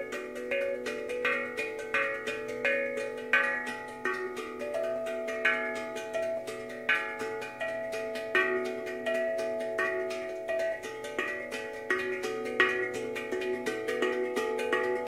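Steel tongue drum played by hand: fingers strike its tongues in a slow, free melody, each note ringing on and overlapping the next.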